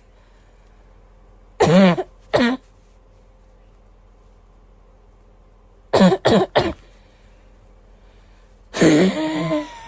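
A girl coughing in short bouts: two coughs about two seconds in, a quick run of three about six seconds in, and a longer cough with some voice in it near the end.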